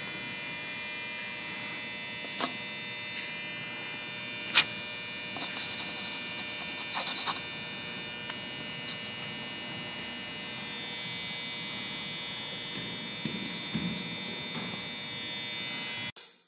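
Steady electrical hum with a constant buzzy pitch. Over it, a pencil scratches and scribbles on paper for a couple of seconds, with a couple of sharp clicks earlier. The sound cuts off suddenly near the end.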